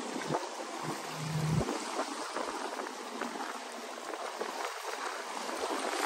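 Small waves washing and trickling over shoreline rocks in a steady hiss, with a brief low rumble about a second in.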